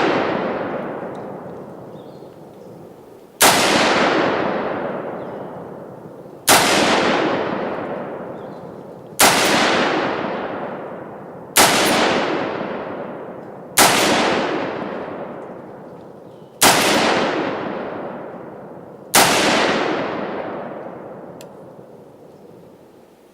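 A DPMS .308 semi-automatic rifle being fired: seven shots spaced two to three seconds apart, each report dying away slowly over a couple of seconds.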